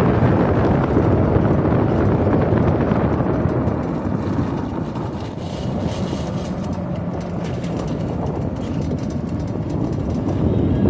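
Wind buffeting the microphone over the rumble of an electric ATV on the move. The rumble eases about halfway through, when a faint steady hum and scattered light clicks come through, then builds again near the end.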